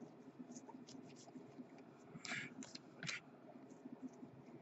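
Faint scraping and flicking of Bowman Chrome trading cards sliding off a hand-held stack as they are flipped through one by one, with two brief louder swishes a little over two and three seconds in.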